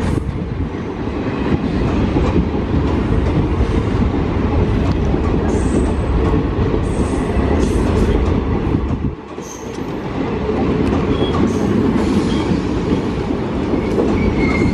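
Passenger coaches rolling past close by: a steady, loud rumble of steel wheels on rail, with brief high-pitched wheel squeals coming and going. The rumble drops briefly about nine seconds in, then returns.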